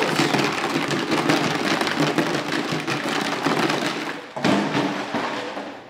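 Plastic rattle jug shaken hard, giving a dense, continuous rattling clatter with a short break a little after four seconds in. It is being used as a noise test of a puppy's nerve.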